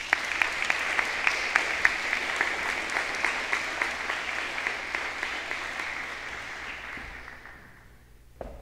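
A small seated group applauding, with individual claps audible, dying away about seven seconds in. A single short knock near the end.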